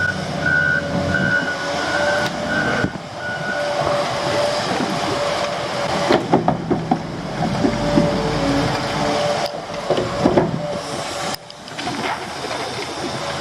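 Heavy diesel construction machinery working close by, with a steady engine whine. A reversing alarm beeps about twice a second for the first few seconds, and metal clanks and rattles come around the middle and again later, as from a loader working dirt into a hole.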